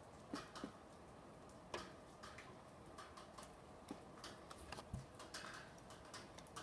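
Faint, irregular light clicks and ticks, a dozen or so scattered through, over a low background hiss.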